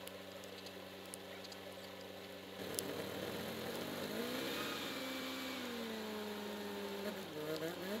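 Tractor engine idling steadily. About three seconds in it gets louder, and its pitch rises and holds as it is throttled up. Near the end the pitch drops and wavers.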